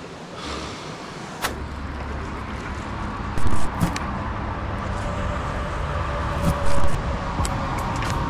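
A motor running steadily and growing gradually louder, with several sharp knocks; the two loudest come about three and a half and seven seconds in.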